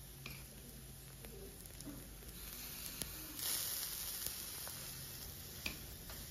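Corn masa picadita with salsa sizzling on a hot griddle, with faint scattered crackles. About halfway through the sizzle grows louder as more salsa is spooned onto it.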